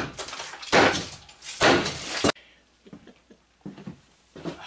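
Three loud hammer blows breaking cinder blocks, a little under a second apart. The sound cuts off abruptly a little past two seconds in, leaving only faint sounds.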